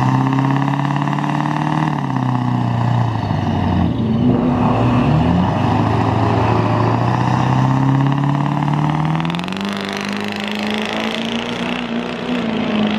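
Duramax 6.6-litre V8 turbo-diesel pickup revving at the drag-strip starting line, its engine note dipping and then climbing as boost is built. About nine seconds in it launches, the note stepping up sharply with a rushing hiss as it accelerates away under full load.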